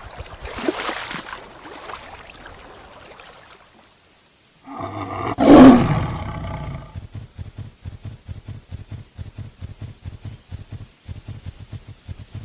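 Hippopotamus calling: a breathy burst, then one loud honking bellow about five seconds in, followed by a long run of rapid, rhythmic low grunts.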